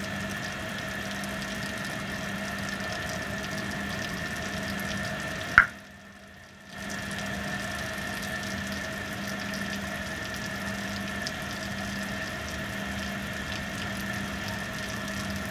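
Steady outdoor background: an even hiss with several steady droning tones under it. About five and a half seconds in, a sharp click is followed by a second-long dropout, and then the same background returns.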